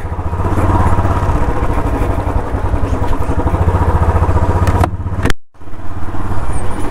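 Royal Enfield Bullet 350 BS6's single-cylinder engine running as the motorcycle is ridden slowly over a dirt track. The sound cuts out for a moment about five seconds in, then carries on.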